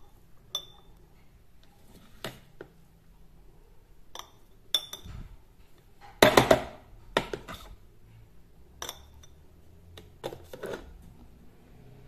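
Metal spoon knocking and scraping against a glass jar and a food processor bowl while minced garlic is spooned into the jar: scattered short clinks, some with a brief glassy ring, the loudest cluster about halfway.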